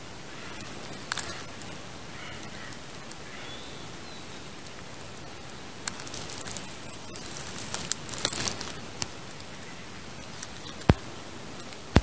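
Soft rustling of leaves and twigs in woodland undergrowth, loudest a little past the middle, over a steady hiss, with a few sharp clicks; the loudest click comes near the end.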